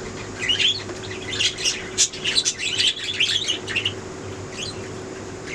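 Budgerigars chirping and chattering in quick, irregular runs of short high notes, easing off about four seconds in.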